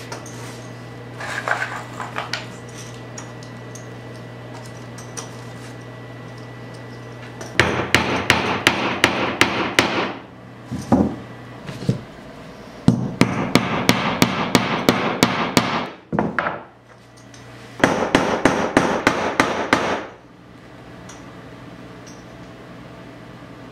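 Hammer tapping bottle caps onto a wooden pole, fastening them along a lagerphone stick: three runs of quick strikes at about four a second, with short pauses between.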